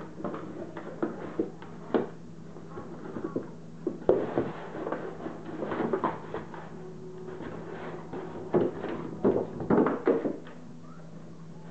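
A small dog with its head in a cardboard 12-pack soda box, shoving and knocking the box across a hardwood floor: irregular scrapes, rustles and knocks, with a cluster of louder bumps near the end.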